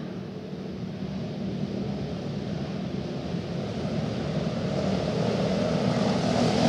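A pack of 250cc cage kart engines running together at part throttle as the field rolls around before the start, growing steadily louder as the karts come closer.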